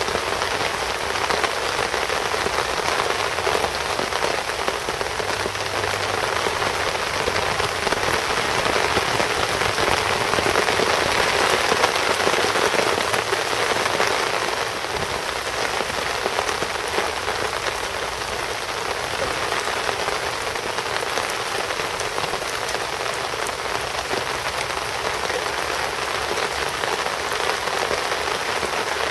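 Steady rain falling on the surface of a lake, a dense, even hiss.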